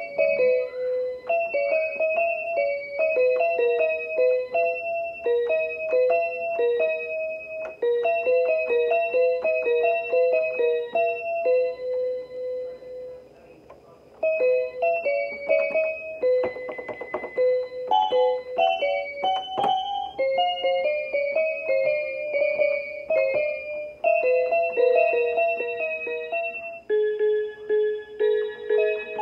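Electronic keyboard playing a simple melody in short, evenly timed notes, breaking off for about a second near the middle and then carrying on.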